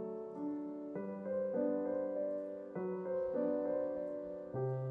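Soft background piano music: slow held chords that change about once a second.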